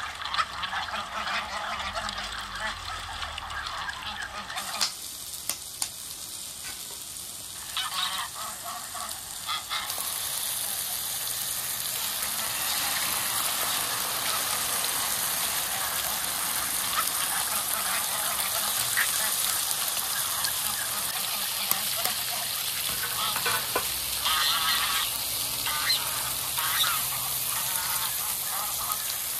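Domestic geese honking on and off, with a steady hiss setting in about ten seconds in and continuing under the calls.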